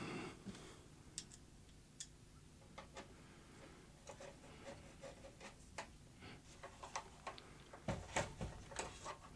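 Faint, irregular small clicks and light knocks of hands handling the metal support frame of a benchtop infrared PCB pre-heater, with a few louder knocks near the end.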